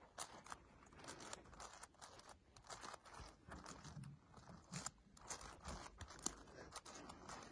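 Faint, irregular clicking and clacking of a 7x7 Rubik's cube's plastic layers being turned by hand, several short clacks a second.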